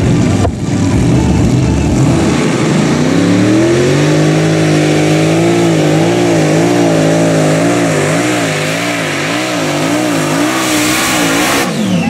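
Three 8.5-litre, supercharged, methanol-fuelled V8 Hemi engines of a pulling tractor idling with an uneven low beat. About three seconds in the revs rise and hold, and from about halfway the pitch wavers up and down as the throttle is worked. Near the end the pitch drops sharply as the tractor sets off on its pull.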